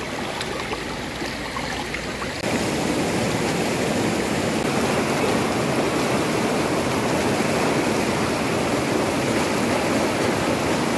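Creek rapids: shallow white water rushing steadily over boulders and rocks, growing louder about two and a half seconds in.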